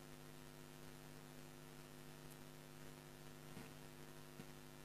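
Near silence with a faint, steady electrical mains hum from the studio's audio system.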